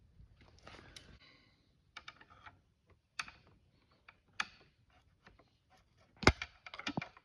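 Small plastic clicks and rattles as the end of a BMW E36 seat-back release cable is worked onto its connector by hand. A louder sharp click comes near the end, followed by a quick run of smaller clicks, as the cable end snaps into place.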